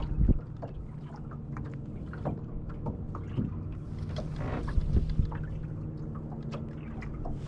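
Steady low hum on a bass boat, with scattered light taps, clicks and small water splashes as a small fish is reeled in and handled at the boat.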